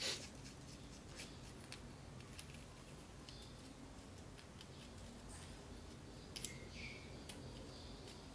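Light handling of a small CCTV lens as its focus ring is turned out to the far end of its travel: a sharp click at the start and a few faint scattered clicks over low room noise.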